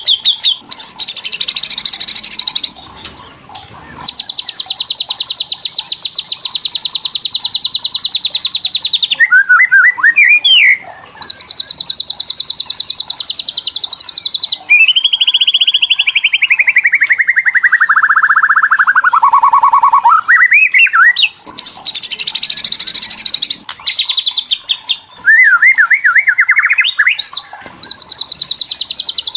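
White-rumped shama (murai batu) giving kretekan: long runs of rapid, evenly pulsed rattling notes, broken by harsh raspy bursts and short rising chips, with one rattle sliding steadily down in pitch about halfway through. It is an agitated rattle, the kind used to provoke other shamas.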